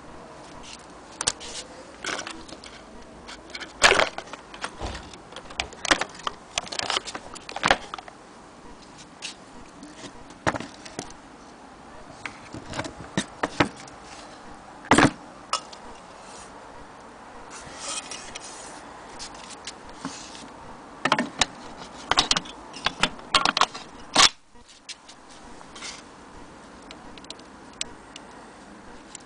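Irregular clicks and light knocks from hands handling a Singer 222K Featherweight sewing machine, its metal parts being moved and tapped.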